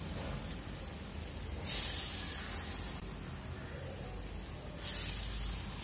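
Chickpea vadas deep-frying in hot oil in a steel pan, a steady sizzling hiss. The sizzle flares up sharply twice, as fresh vadas of batter are dropped into the oil, and dies back down each time.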